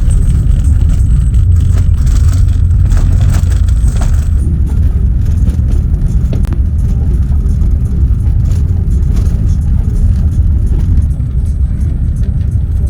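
Vehicle driving: a loud, steady low rumble of engine and running noise.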